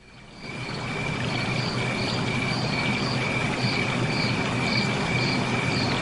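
Insects chirping over a steady hiss, fading in during the first second: a constant high trill with a higher chirp pulsing about twice a second.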